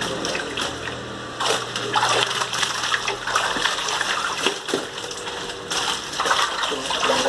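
Water splashing and sloshing in irregular surges as a hand net is swept through a shallow fish tank.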